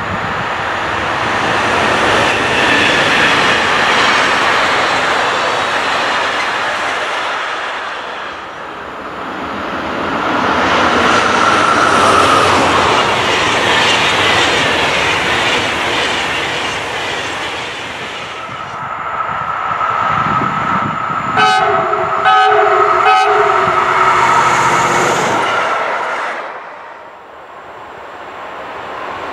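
Electric-hauled trains passing close by in succession: first a container freight train, then a long rake of SBB passenger coaches, each a long swell of wheel-on-rail rumble and clatter. About two-thirds of the way through, a train horn sounds several short blasts.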